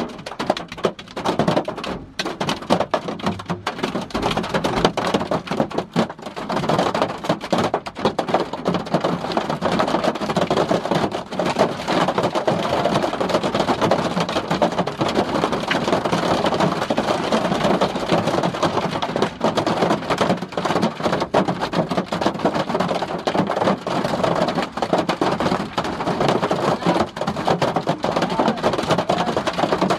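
Hail drumming on a car's roof and windscreen, heard from inside the car: a dense, steady clatter of pellet hits that grows heavier over the first six seconds or so and then holds.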